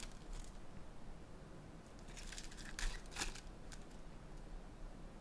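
Trading card packaging being opened by hand: plastic and foil wrappers crinkling and tearing in short rustles, busiest a couple of seconds in.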